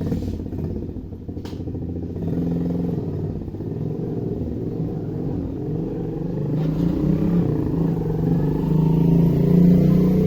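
Low engine rumble with a steady hum, starting suddenly and growing a little louder in the second half.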